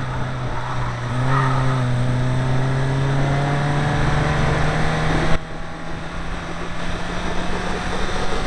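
Rally car engine heard from inside the cabin, pulling under throttle with its pitch slowly rising, then dropping abruptly about five seconds in before climbing again.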